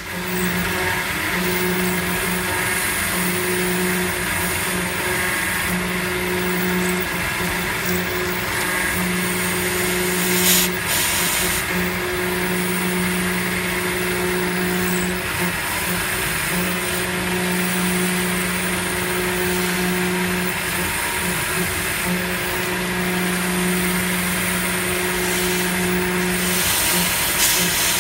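CNC milling machine's end mill cutting aluminium under flood coolant: a pitched cutting tone that drops in and out as the cutter engages, over the steady hiss and splash of coolant. A short sharp noise comes about ten and a half seconds in.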